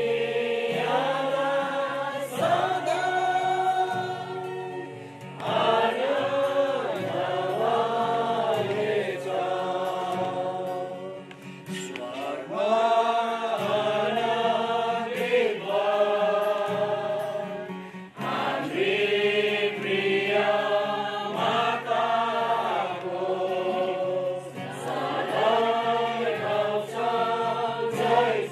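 Choir singing a hymn in phrases with short breaks between them, over held low accompanying notes.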